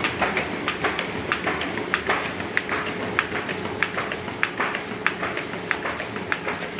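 B&R Moll folding and gluing machine running as sheets feed through its conveyors: a steady hum under sharp clicks at about two or three a second, not quite evenly spaced.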